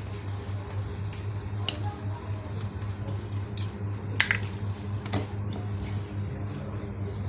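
Sharp metallic clinks of metal parts or hand tools knocking together, the two loudest about four and five seconds in, over a steady low hum.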